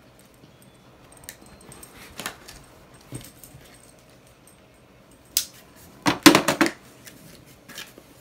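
Cardboard package being handled and opened, with light rustling and clicking. About six seconds in comes a quick burst of several short dog barks, the loudest sound.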